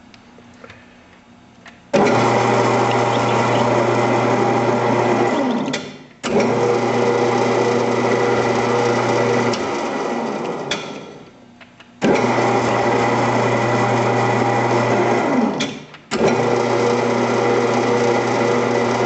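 Grizzly 0602 lathe spindle motor and gear drive starting abruptly and running in four stretches of about three to four seconds each, with short stops between. The spindle alternates clockwise and counterclockwise to drive an M8 tap into a steel workpiece and back it out to clear chips.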